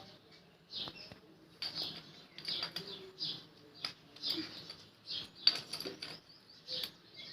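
Small birds chirping over and over, a short high call roughly every three quarters of a second, with a few sharp clicks of hand tools on the brake-shoe assembly.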